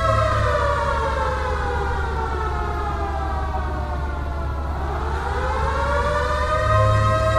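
Quarry warning siren wailing. Its pitch slides down over about four and a half seconds, then climbs back up and levels off near the end, over a low steady hum.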